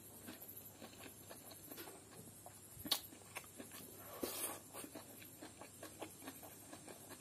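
Faint sounds of eating by hand: quiet chewing and mouth smacks with scattered small clicks, a sharper click about three seconds in, and a short louder rustle just after four seconds as a handful of fried rice and greens goes into the mouth.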